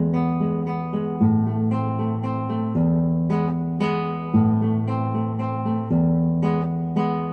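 Background music: a strummed acoustic guitar playing chords, the chord changing about every second and a half.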